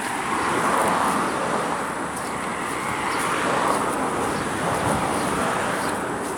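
Road traffic passing on the adjacent road: a steady rush of tyre and engine noise that swells as cars go by, twice.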